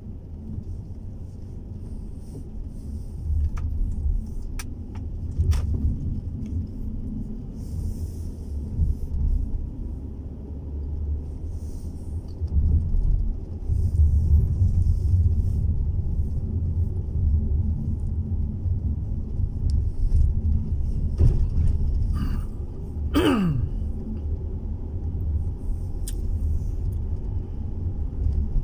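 Low, steady rumble of a car's engine and tyres heard from inside the cabin while driving, with a few faint clicks early on and a short tone that slides quickly down in pitch about 23 seconds in.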